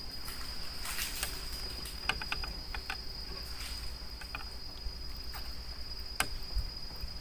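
Insects trilling on one steady high pitch, over a low steady rumble, with a few scattered sharp clicks, the strongest about six seconds in.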